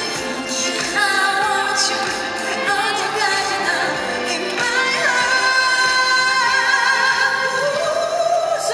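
A woman singing a pop ballad live into a handheld microphone over backing music, holding one long note through the second half.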